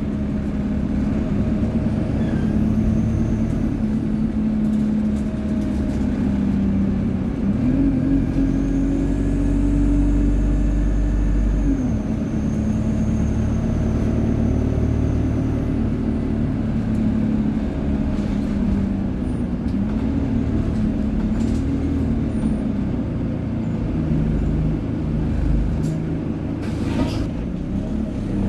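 ADL Enviro 200 single-deck bus's diesel engine and Allison automatic gearbox under way, the engine note rising and falling with the gears, with a faint high turbo whine above it.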